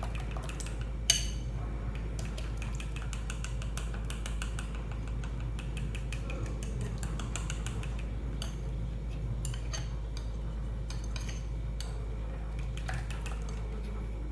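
A utensil stirring a thick flour-and-egg batter in a bowl, clicking rapidly against the sides, with one sharper knock about a second in.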